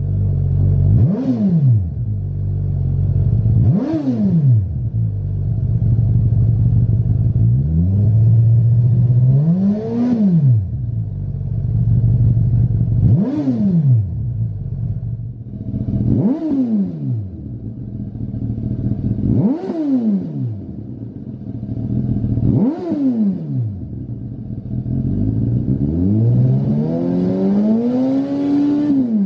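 Suzuki GSX-S1000's inline-four engine through a Lextek MP4 aftermarket silencer, idling and revved repeatedly. Roughly every three seconds a quick rev rises and drops back to idle, with two slower, longer revs, one around ten seconds in and one near the end.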